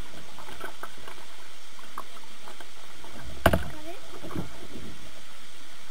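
A kayak being paddled with a double-bladed paddle: blade strokes dipping and splashing in the water, heard from the bow of the boat. There is one sharp knock about three and a half seconds in.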